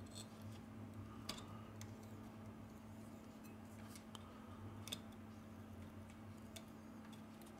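Faint, scattered clicks of metal tweezers touching the Xiaomi Redmi 8A's motherboard and shields as a small part is picked at, over a faint steady low hum.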